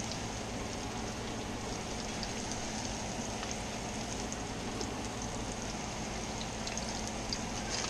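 Fish fillets frying in oil in a skillet: a steady sizzle with small scattered pops.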